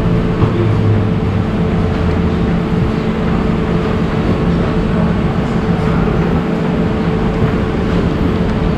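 Steady food-court background noise: a constant mechanical hum with one unchanging tone over a low rumble.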